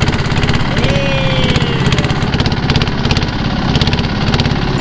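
Engine of a small wooden river boat running steadily under way, a rapid, even pulsing. A single short falling tone is heard about a second in.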